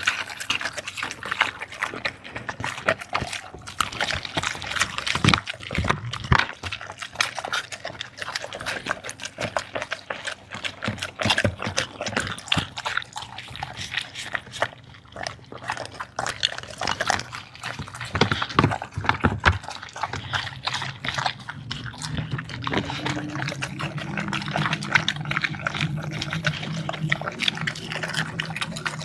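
A dog eating wet food, with rapid wet chewing, smacking and slurping noises. A low steady hum comes in about two-thirds of the way through.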